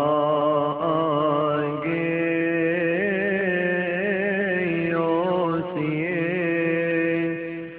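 A man chanting a Coptic hymn in long, ornamented notes that bend up and down, fading near the end.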